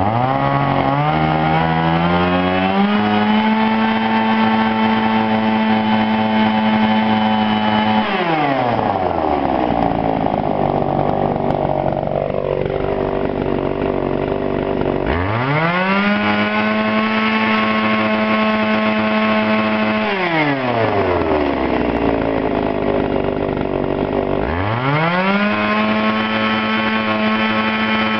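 Tanaka PMS-335A two-stroke chainsaw revving up to full speed, holding there for about five seconds, then dropping back to idle; this happens three times.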